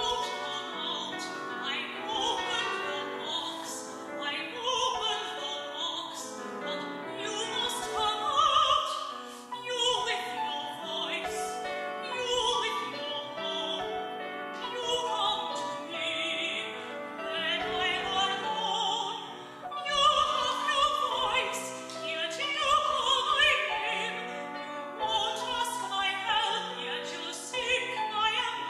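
Operatic soprano singing with piano accompaniment in a classical art-song style, from an old cassette recording with wobbly, uneven sound.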